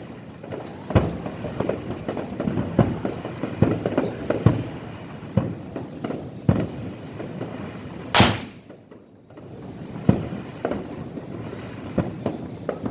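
Fireworks display: an irregular run of shell bursts and bangs, several a second at times. The loudest is a sharp crack about eight seconds in.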